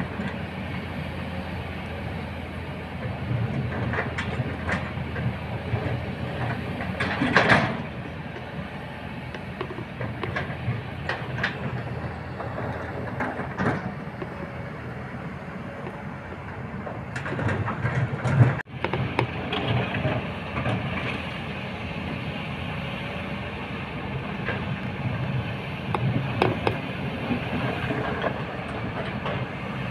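Kobelco SK210 long-reach hydraulic excavator's diesel engine running steadily while its bucket works a pile of large stones, with rocks clattering and knocking at irregular intervals. The loudest clatters come about seven seconds in and again around seventeen to eighteen seconds in.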